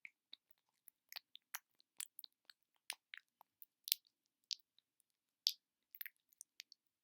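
Close-miked ASMR trigger sounds: short, crisp clicks and pops, irregular, a few each second, with silence between them.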